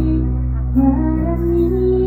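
Live music: a woman singing long held notes into a microphone over amplified instrumental backing with a steady bass.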